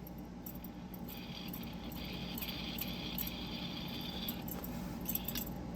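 Black Mirror Designs dial fidget toy spinning freely on its bearing: a faint, steady rattly whir with a few light ticks, strongest from about one second in to near the end. The rattle, which the owner puts down to needle bearings left in by mistake, shows the dial sits a little loose.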